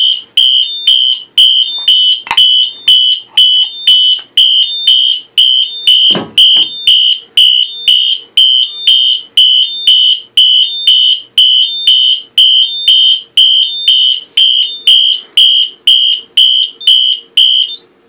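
Fire alarm horn on a Simplex 4004 fire alarm system sounding a loud, high-pitched pulsing tone, about two blasts a second. The system is in alarm, set off by a smoke detector during a smoke test.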